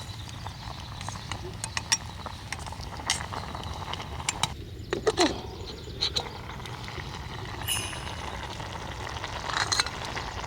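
Outdoor campfire cooking: scattered sharp clicks and clinks of utensils and a pot over a crackling fire, with a couple of louder knocks about five seconds in.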